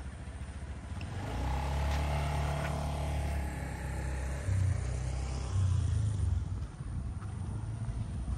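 A motor vehicle's engine running as it passes close by, a low rumble that builds about a second in and swells twice near the middle before easing off.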